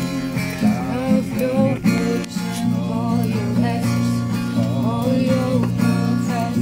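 Acoustic guitar strummed steadily under a voice singing a wavering, sliding melody.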